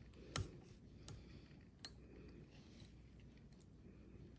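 Near silence: faint room tone with a few light, short clicks from handling the fly and tools at the fly-tying vise, three of them in the first two seconds.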